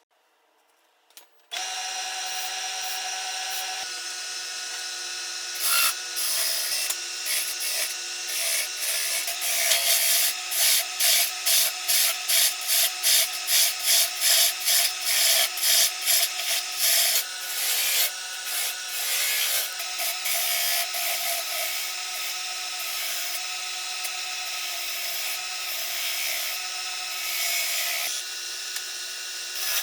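A power tool switches on about a second and a half in and runs steadily while wood is worked against it. Regular rubbing strokes, about two a second, come through it for several seconds in the middle.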